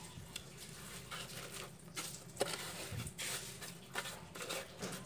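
A hand pressing and patting wet soil around seedlings in a plastic planter: irregular soft scrapes, crumbling and small taps, the sharpest tap about halfway through.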